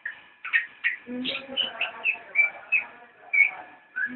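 Songbirds chirping and whistling in a quick run of short notes, some sweeping downward, several to a second.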